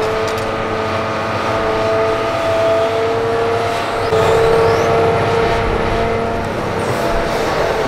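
Hitachi Zaxis 350H excavator working, its engine running steadily with a constant high-pitched whine above a low rumble.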